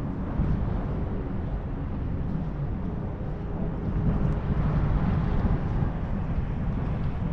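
Wind buffeting the microphone: a steady low rumble that swells a little about four seconds in.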